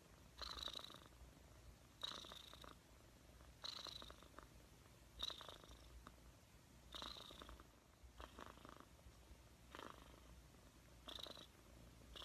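Long-haired grey-and-white cat purring faintly, close up, the purr swelling in a regular rhythm about every second and a half.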